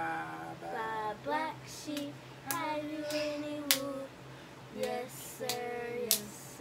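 A woman and a child singing a children's song together in held, sliding notes, with a few sharp hand claps, the loudest near the middle.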